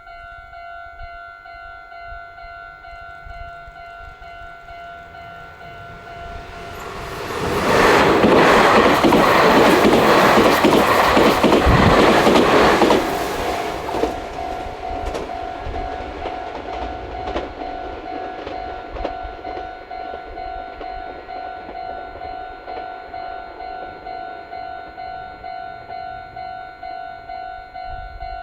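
Japanese level crossing warning bell ringing in an even repeating rhythm as a Meitetsu Nagoya Main Line train passes. The train's noise swells about seven seconds in, stays loud for about five seconds, then falls away while the bell keeps ringing.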